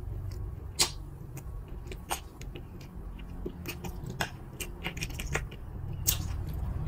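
Close-miked eating sounds: chewing a fried risol filled with rice vermicelli, with scattered sharp mouth clicks and smacks and light clicks of a fork in a soup bowl.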